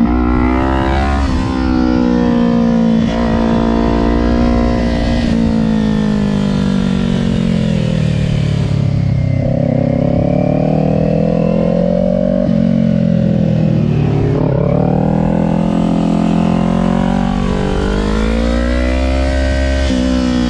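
Kawasaki Ninja 400's parallel-twin engine running on track, heard from on the bike: engine pitch slides down from about a third of the way in as the bike slows for a corner, holds low, then climbs again as it accelerates out toward the end.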